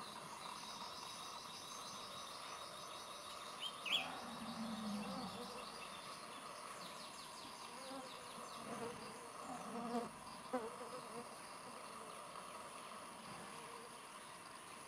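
Steady buzzing of flying insects, with a brief high chirp about four seconds in and a few short, low sounds scattered through the middle.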